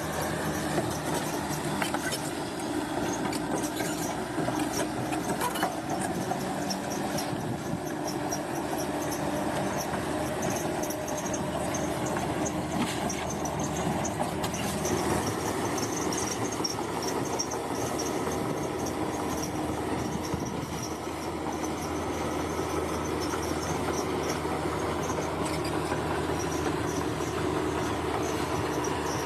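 Bulldozer at work: its diesel engine runs steadily, with a metallic squeal over it.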